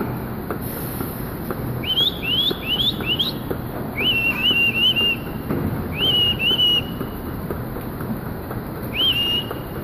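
A series of high whistles: four quick upward-sweeping whistles about two seconds in, then short notes that rise and hold, in groups of three, two and one. Underneath is the steady hum and clatter of milking-parlor machinery.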